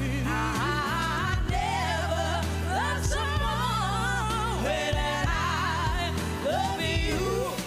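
Women singing a pop ballad live, the voices wavering with vibrato over band accompaniment with a steady bass.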